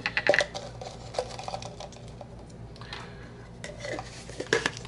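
Light clicks and clatter of small hard objects being handled and set down on a work table: a quick cluster of clicks right at the start, a few scattered ones after, and more near the end.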